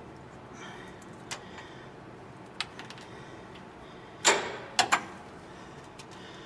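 A few metal clicks and clanks from a half-inch drive bar levering the belt tensioner clockwise to slacken the belt. The loudest is a sharp clank a little past four seconds in, followed by two quick clicks.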